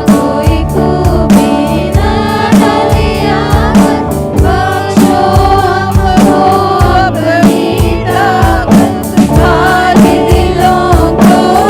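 A gospel worship song: several voices singing together over a band with a steady drum beat.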